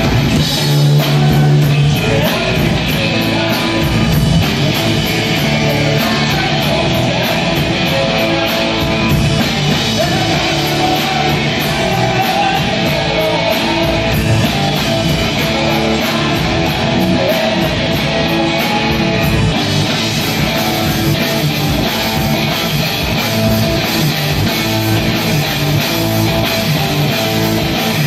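Instrumental rock played live by a band: amplified electric guitars and a drum kit. Regular hi-hat ticks keep time for most of the stretch, changing to a steady cymbal wash about twenty seconds in.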